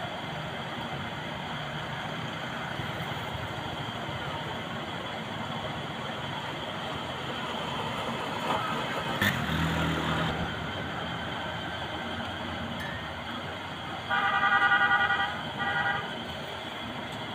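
Steady roadside traffic noise, with a single knock about halfway through. Near the end a vehicle horn sounds twice: a honk of about a second, then a shorter one.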